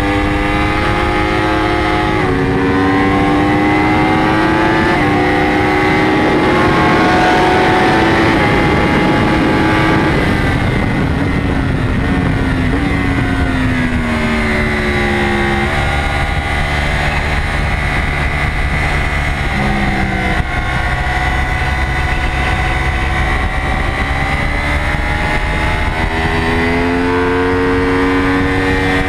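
Yamaha YZF-R1 superbike's crossplane inline-four engine at high revs under race acceleration, climbing in pitch with quick upshifts near the start. About halfway it drops in revs with downshifts as the bike slows for a corner, then pulls hard again with another upshift. Wind rushes over the fairing throughout.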